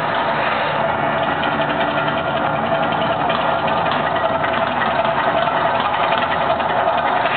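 Man-made volcano fountain at the Mirage erupting: a loud, steady roar of water jets and fire effects mixed with the show's soundtrack.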